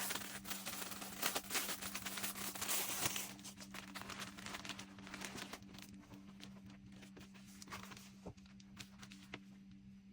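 Crinkling and rustling of packaging being handled, dense for the first three seconds, then thinning to scattered light clicks and rustles, over a steady low hum.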